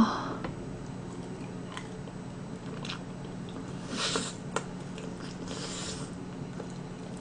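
Soft mouth sounds of a person biting and chewing a sauced roast chicken piece, with a few faint clicks and two brief hisses about four and five-and-a-half seconds in.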